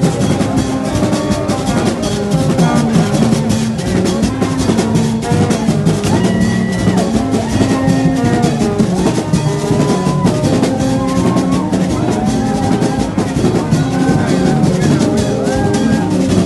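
Haitian Vodou ceremony drumming: a dense, fast, steady beat of drum strikes with a melody over it.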